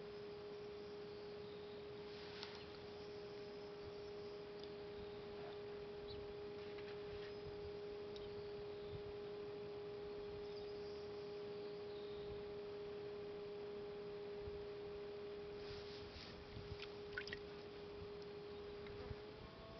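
Electric pottery wheel motor giving a faint, steady whine while clay is thrown on it; the pitch rises smoothly near the end as the wheel speeds up. A few soft wet clicks from hands on the spinning clay come a little before.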